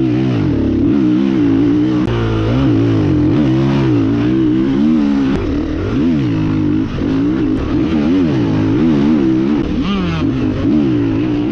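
KTM 350 EXC-F's single-cylinder four-stroke engine, breathing through an FMF exhaust, ridden hard in sand: the engine note climbs and drops over and over as the throttle is opened wide and eased off.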